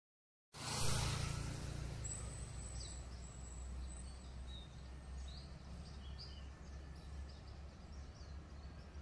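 Steady low rumble of a twin-engine jet airliner on final approach, with birds chirping. It starts abruptly about half a second in.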